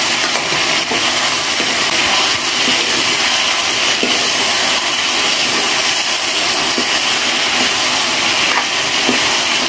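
Chicken curry sizzling steadily as it fries in a metal wok, with a few light scrapes of a metal spoon stirring it.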